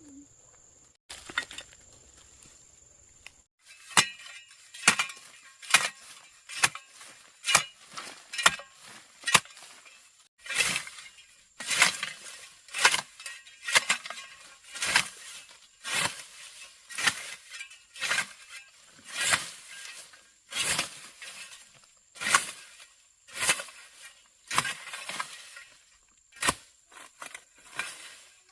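Steady series of sharp strikes from a hand tool hitting something hard, about one a second, each with a short ring. They start a few seconds in and keep up an even rhythm to the end.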